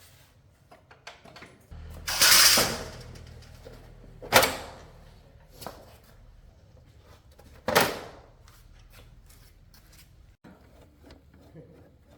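Motorcycle repair work: a low steady hum with a loud hiss about two seconds in, and two sharp metallic knocks a few seconds apart.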